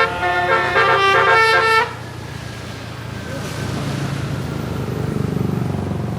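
Bus telolet basuri air horn, a 36-note musical horn, playing a quick melody of stepped notes that stops about two seconds in. After it, a lower, steady vehicle-engine hum that swells slightly.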